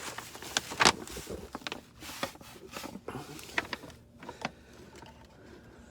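A few scattered sharp clicks and knocks of hands handling hard parts, the loudest about a second in, dying away after about four seconds.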